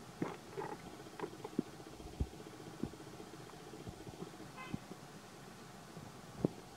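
Faint outdoor ambience: a distant motor vehicle hums in the first few seconds, with scattered light clicks and taps and a brief high toot about halfway through.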